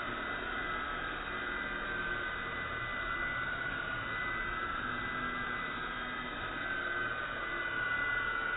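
Small toy quadcopter's motors and propellers buzzing, the audio slowed down with the slow-motion footage so the whine comes out low and dull, wavering slowly in pitch as the drone drifts.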